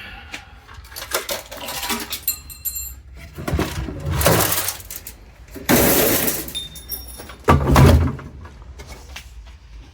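Metal parts of a dismantled hot water heater being handled and set down: a run of clattering knocks and scrapes, the loudest a few seconds in and near the end, with a couple of brief high metallic rings.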